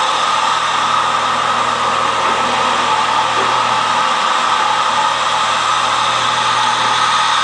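Haas VF-2SS CNC vertical machining center running as it machines a part: a steady whir with a constant high tone.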